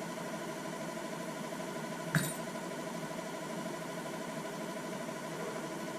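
A steady machine hum with even, fixed-pitch tones, broken once about two seconds in by a single sharp click.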